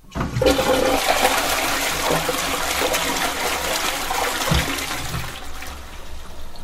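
Toilet flushing: a loud rush of water that starts suddenly out of silence and eases off slightly after about five seconds.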